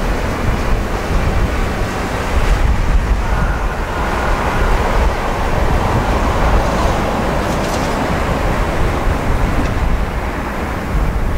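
Wind buffeting the microphone over a steady low rumble of outdoor harbour ambience, uneven and gusty in the low end.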